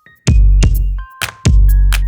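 Electronic music with a drum-machine beat: heavy sub-bass notes that drop out between hits, sharp clicks and short synth tones.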